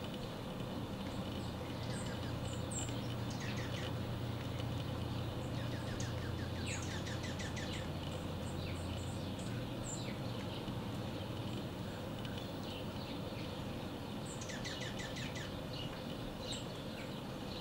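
Small songbirds chirping, with three quick trills of rapidly repeated notes, over a steady low rumble that stops about halfway through.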